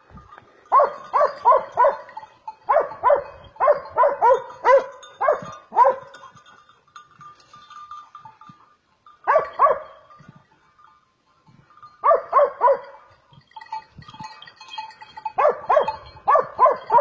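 Hunting hound barking in quick runs of three to five barks, with pauses of a few seconds between runs, as it bays at a hog hidden in the brush.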